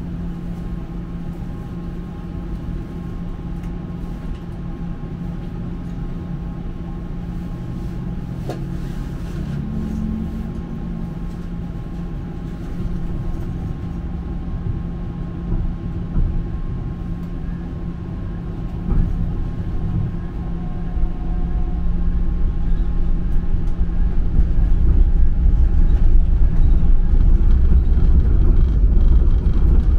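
Ride inside an electric streetcar: the car's electrical equipment hums with several steady tones over the rumble of wheels on rails. The low rumble grows louder over the last third.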